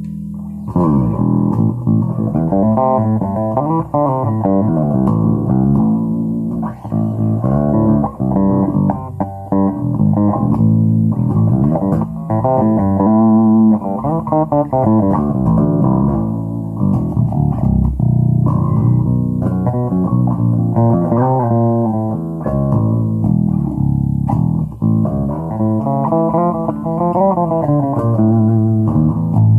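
Electric bass guitar played through a Markbass 112 combo amp, a 12-inch speaker with a tweeter: a continuous run of plucked notes that starts under a second in. The amp sounds clean and full in the bass after its repair of the tweeter, crossover, switch and pots.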